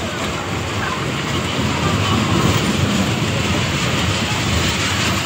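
Small fairground dragon-train ride running past on its narrow rails, loudest about two to three seconds in as the cars go by.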